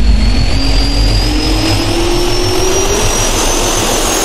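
Jet turbine spooling up, as a sound effect: a whine that climbs steadily in pitch over a rushing noise and a low rumble.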